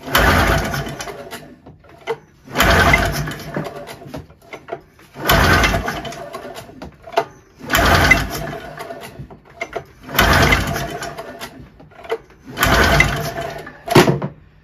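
Ski-Doo Formula MX's Rotax two-cylinder two-stroke engine cranked with the recoil pull-starter: six pulls about two and a half seconds apart, each a short turnover that fades without the engine firing. It will not start despite spark and oil in the cylinders, which the owner suspects is down to low compression. A sharp knock comes near the end.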